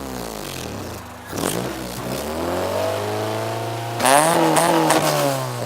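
Car engine revved from outside: the revs fall away, a sharp exhaust pop comes about a second in, the engine is held at a raised rev, then a louder quick blip near the end with pops as the revs drop back.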